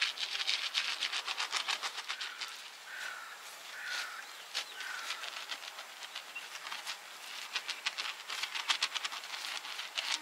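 Silicone pastry brush dabbing and stroking melted butter over crusty baked flatbread, making quick, rapid ticking and crackling taps in runs. The taps are densest at the start and again near the end. Four short falling chirps come about a second apart in the middle.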